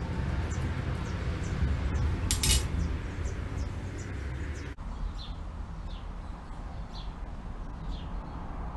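Handling noises with a brief metallic clink about two and a half seconds in, over a faint high chirp that repeats about twice a second.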